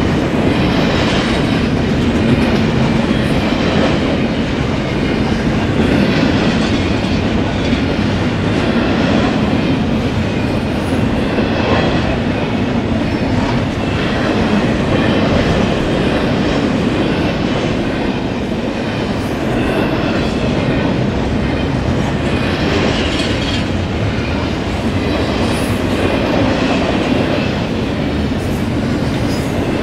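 A long freight train's cars rolling past steadily, the wheels clicking over the rail joints.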